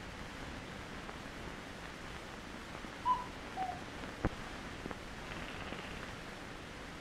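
Steady hiss of an early optical film soundtrack. About three seconds in come two short whistled notes, the second lower than the first, and a sharp click follows about a second later.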